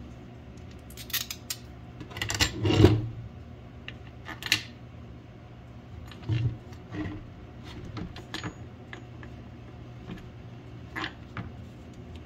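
Metal bolts and washers clinking and a thick HDPE skid plate panel knocking and sliding on a wooden tabletop as hardware is fitted and the panel is turned over. The clatter comes in scattered short bursts, loudest about two to three seconds in.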